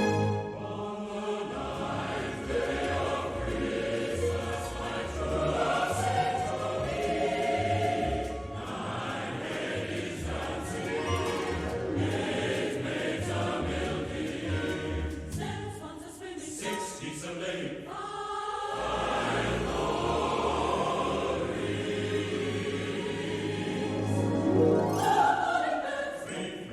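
Choral music: a choir singing sustained, swelling lines over an instrumental accompaniment.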